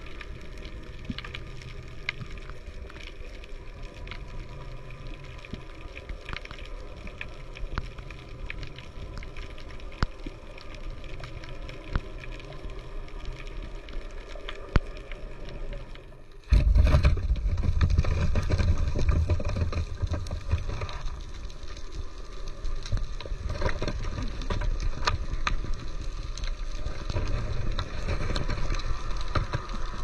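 Underwater sound picked up by a camera on the seabed: a steady low rumble and hiss of moving water with many scattered sharp clicks. About halfway through it suddenly gets louder and heavier in the low rumble.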